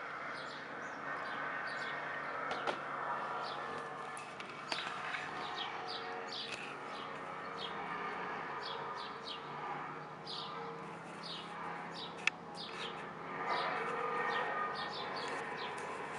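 A steady droning hum of held tones in the air, swelling a little near the end, which the recordist takes for one of the unexplained 'strange sounds from the sky'. Birds chirp over it with many short, quick calls.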